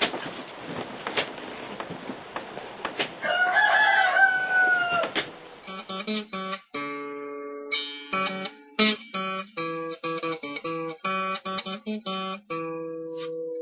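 Farm background with one long animal call lasting about two seconds. About five and a half seconds in, acoustic guitar music begins, plucked notes played one after another.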